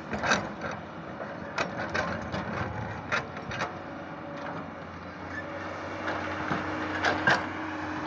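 JCB JS215 tracked excavator's diesel engine running steadily under work, with a series of sharp metallic clanks and knocks from the bucket and boom as it digs through snow. The knocks come thick over the first few seconds, with two loud ones near the end.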